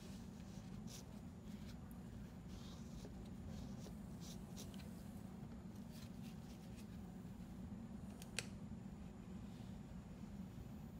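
Faint rustling and scraping of a paper towel as gloved hands wipe epoxy off a tool, with one sharp click about eight seconds in, over a steady low hum.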